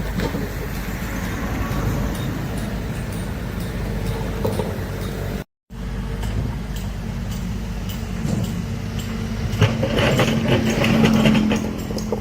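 Heavy diesel earthmoving machinery running steadily, with a brief break about halfway through. Louder clattering and a steady hum come in near the end.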